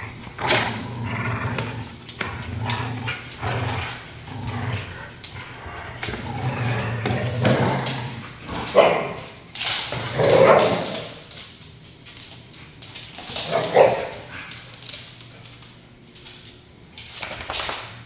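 Pit bulls and a Belgian Malinois play-growling and snarling in a tug-of-war over a Kong toy. A low continuous growl runs through the first half, broken by several loud, sudden snarling outbursts.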